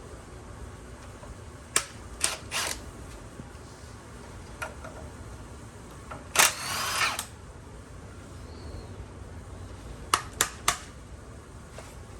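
Hand tools working a nut on the truck's front suspension. There are scattered sharp metallic clicks, a few about two seconds in and a few more near the end, and one short, louder rasping burst of under a second in the middle.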